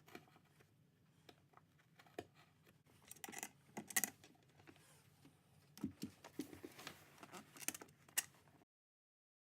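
Faint scattered clicks, light metallic taps and rustles of small hardware and carpet being handled. They grow busier after about three seconds, then cut off to dead silence near the end.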